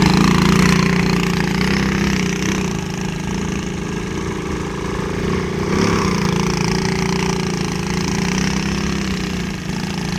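Small Chinese quad bike's engine running as it is ridden over sand, the revs rising and falling a little with the throttle. It is loudest at the start while close, with a brief rise in revs about six seconds in.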